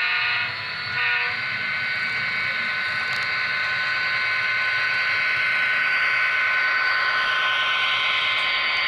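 Digital sound decoder (Tsunami) of an HO scale CSX diesel locomotive model: two short horn blasts in the first second and a half, then the locomotive's steady running sound with a held high tone as the train passes close by. The rolling noise grows near the end.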